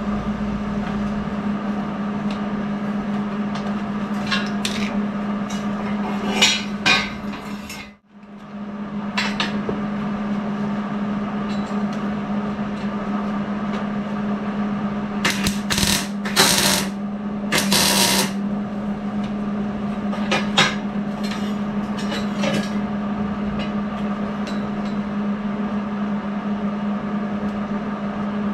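Steel exhaust pipe being shifted and lined up on a concrete floor: scattered clanks and scrapes, with a few louder short bursts about halfway through, over a steady electrical hum.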